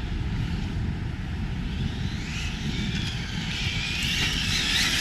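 Arrma Felony 6S RC car's brushless electric motor whining as the car is driven, the high whine rising and falling in pitch with the throttle and growing louder toward the end as it comes closer, over a steady low rumble.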